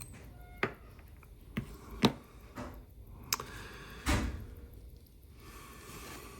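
Small metal watchmaker's tools, such as tweezers, clicking and tapping against a tiny watch movement and its holder while parts are taken off: about six separate sharp clicks, the loudest about two seconds in, and a short scrape about four seconds in.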